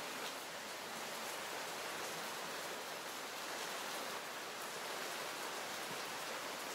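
Steady, even hiss of falling water, like light rain or a fountain, with no calls from the monkeys.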